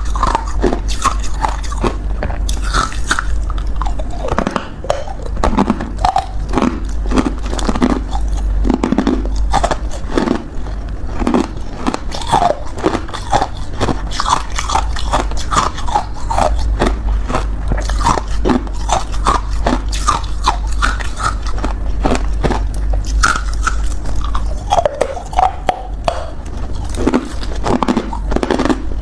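A person biting and chewing ice: dense, irregular crunching and cracking, over a steady low hum.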